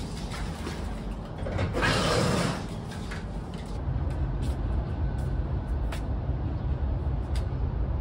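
A glass sliding door rolling open, a short rush of sound about two seconds in. From about four seconds, a steady low rumble of distant city traffic, with a few faint ticks over it.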